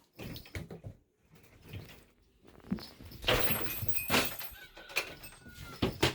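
Pet monkeys scrambling around and over a person: irregular knocks, thumps and rustling, busiest and loudest about three to four seconds in.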